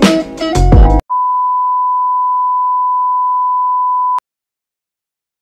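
About a second of bass-heavy intro music stops abruptly. A steady, high, single-pitch test-tone beep follows, the 1 kHz reference tone that goes with TV colour bars. It holds for about three seconds and cuts off sharply.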